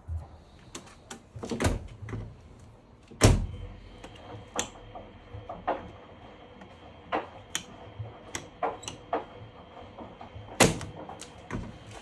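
Handling of a Miele tumble dryer: scattered clicks and knocks, with two loud thunks about three seconds in and near eleven seconds, and lighter clicks as its programme dial is turned.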